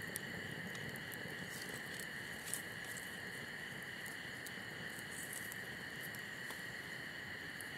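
Small twig-and-grass campfire crackling, with scattered sharp pops and ticks from the burning sticks, one louder pop about two and a half seconds in.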